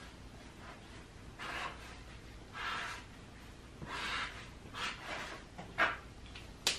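Felt-tip marker drawing short strokes on paper: a series of faint, scratchy strokes about a second apart, followed by a sharp click near the end.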